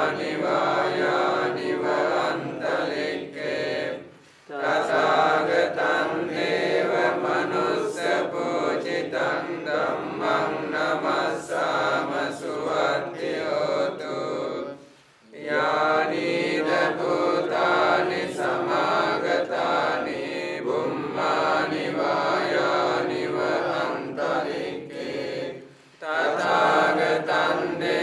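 Group of Theravada Buddhist monks chanting Pali paritta blessing verses together in a steady recitation. The chant breaks off briefly three times, roughly every eleven seconds, for breath.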